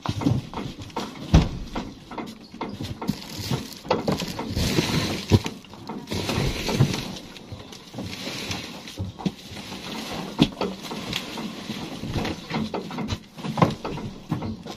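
Irregular rustling with scattered knocks and thumps, the noise of objects being handled and moved about.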